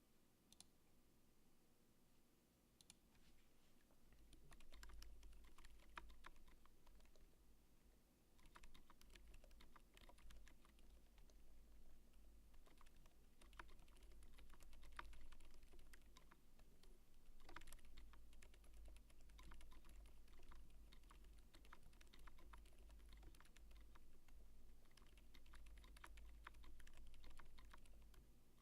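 Typing on a mechanical keyboard with lubed 78g Cherry MX Zilents silent switches (Silent Black stems in Zealio housings) and GMK keycaps: very quiet, muted keystrokes. A few scattered presses at first, then steady typing from about four seconds in, with a low rumble underneath.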